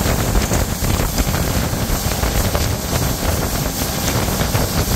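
Wind buffeting the microphone on a motorboat under way, over a steady rush of motor and water.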